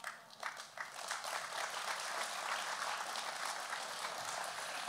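Audience applauding: a few scattered claps at first, quickly filling in to steady clapping.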